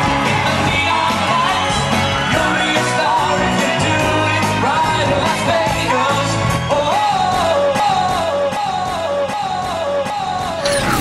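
Live amplified pop song with a rock-and-roll feel: a man sings the lead into a handheld microphone over an upbeat backing with a steady beat. Several of his phrases fall in pitch in the second half.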